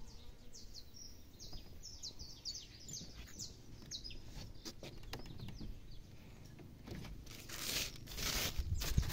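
Small birds chirping in quick, high, repeated calls, busiest in the first half. Near the end come a few short, loud rustling noises.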